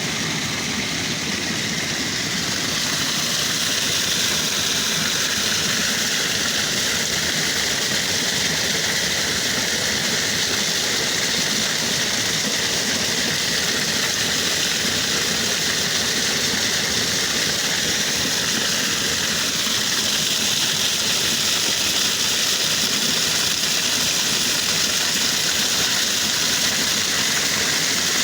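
Creek water rushing over rocks, a steady, even rush.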